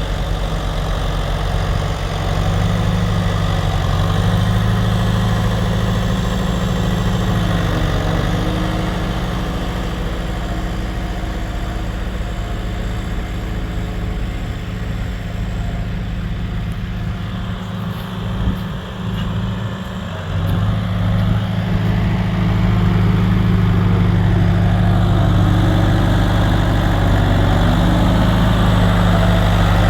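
Engine of heavy farm machinery running steadily. It eases off somewhat in the middle and picks up louder again about two-thirds of the way through.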